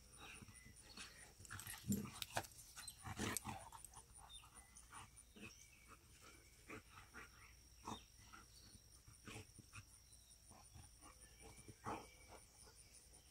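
Two boxer dogs play-fighting, faint: a run of short dog sounds and scuffles, loudest about two and three seconds in and again briefly near eight and twelve seconds.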